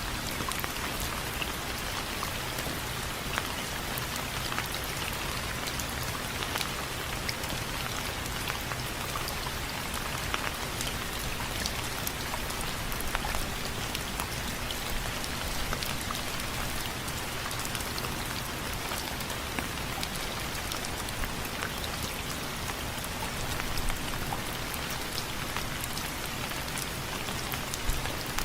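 Steady rain with many individual drops ticking sharply on a hard surface, which the title gives as window frames.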